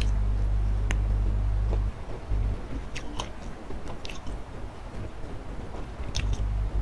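Close-up eating sounds: crisp crunchy bites and chewing of crispy fried chicken, with sharp crunches every second or so. Under them a loud low rumble runs, stops about two seconds in and comes back near the end.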